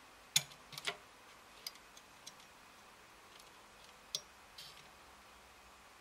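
A few light, sharp clicks and taps from hands working a multimeter probe on the circuit board of an opened plastic smoke alarm: a cluster of the loudest ones within the first second, a few fainter ones after, and two more about four seconds in.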